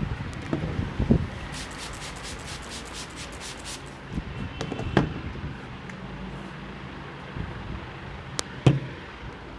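Hands rubbing and patting the scalp and hair during a head massage. There are dull thumps about half a second and a second in, again near the middle and near the end, and a run of fine crackling clicks in between.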